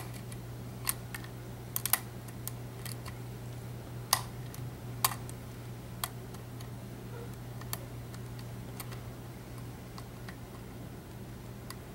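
Lock pick and tension wrench single-pin picking an EVVA ALS euro profile cylinder: small, sharp metallic clicks at irregular intervals as the pick works the pins, more frequent in the first half.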